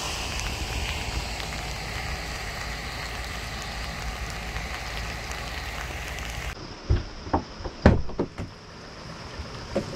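Steady outdoor noise with a low rumble, then a sudden change to a quieter interior where a handful of irregular knocks and thumps sound, the loudest about eight seconds in.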